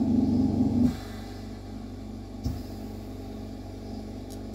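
Steady mechanical hum from the running lampworking torch setup, loud for the first second, then dropping sharply to a lower steady hum, with a single soft thump about halfway through.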